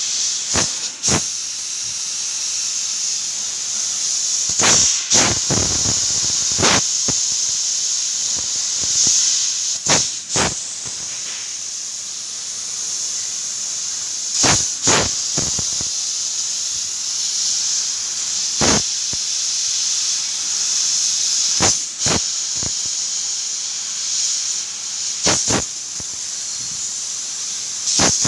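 Laser cutting machine cutting steel plate: a steady high hiss from the gas jet at the cutting head, broken every few seconds by sharp cracks, mostly in pairs.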